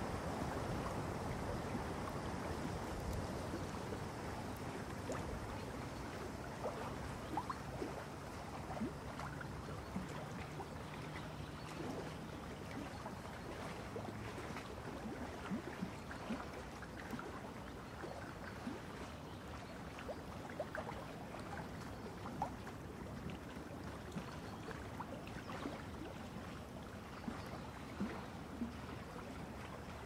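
A paintbrush working acrylic paint on a stretched canvas: a faint, steady scratchy rustle of bristles, with many small scattered taps and clicks. It is a little louder in the first few seconds.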